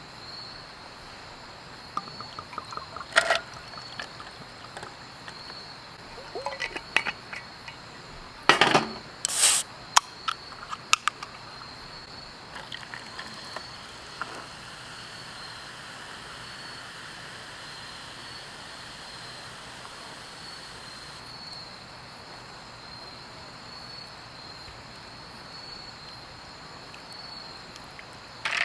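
Crickets chirping steadily, with a few sharp clicks and knocks from handling things. The knocks come about three seconds in and in a cluster around nine to eleven seconds.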